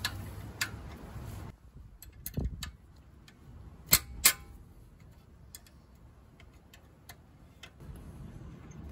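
A spanner working the 12 mm bolts of a Suzuki Jimny's front brake caliper: scattered sharp metallic clicks and taps of the tool on the bolt and caliper. The two loudest clicks come close together about four seconds in, with a duller knock a little before them.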